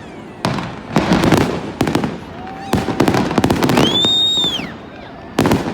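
Fireworks going off in a series of loud bangs with crackling between them, and a high whistle that rises and falls about four seconds in.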